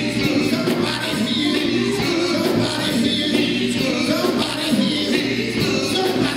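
A live band plays, with male singers leading over electric guitars, bass guitar and drums.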